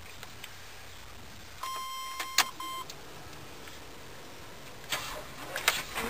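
A truck's electronic warning chime sounds one steady beep of about a second, with a sharp click partway through, over a low steady hum. A couple of brief noises follow near the end.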